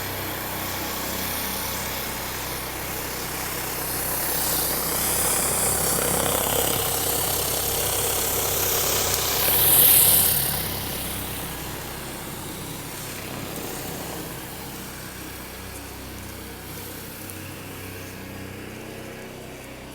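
Pressure washer engine running steadily under the hiss of high-pressure water spraying. The spray hiss swells to its loudest about halfway through, then fades.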